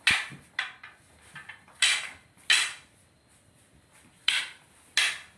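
Wooden fencing sticks clacking together as two fencers trade strikes and parries: a series of sharp, irregular cracks, about five loud ones with a few lighter taps between.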